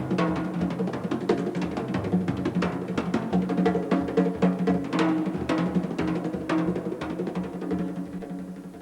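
Instrumental jazz band music with busy drums and percussion over steady pitched notes, dropping somewhat in level near the end.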